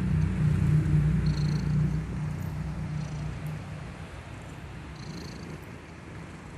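Sleeping kitten snoring loudly, a low fast rattle on each breath with a faint high whistle every couple of seconds; it is loudest in the first two seconds, then fades.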